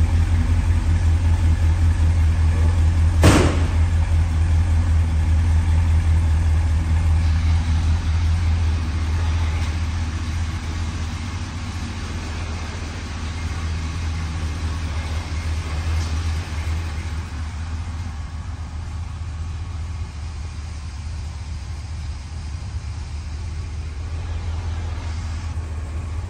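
1979 Ford Bronco's V8 idling steadily just after a cold start, growing somewhat quieter past the middle. There is a single sharp knock about three seconds in.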